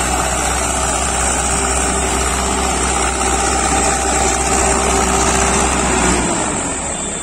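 Farmtrac 6055 tractor's diesel engine running steadily while it drags a tillage implement through dry stubble; its note drops about six seconds in.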